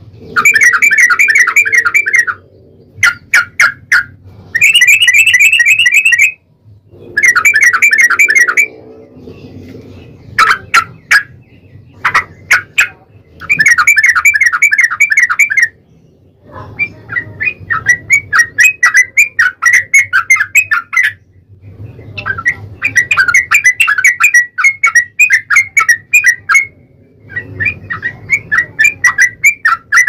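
Yellow-vented bulbuls (trucukan) calling in long, rapid trills of repeated bubbling notes. The trills come in bursts of one to two seconds, broken by short single calls, with the trills running closer together in the second half.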